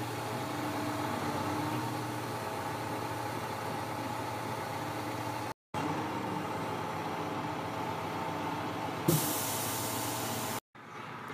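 Crane truck's diesel engine running steadily. About nine seconds in, a sharp hiss sounds for about a second and a half.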